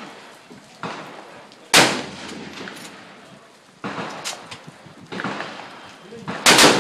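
Rifle shots on a firing range: two loud reports about five seconds apart, the second the loudest, each with a short ringing tail, with fainter reports in between.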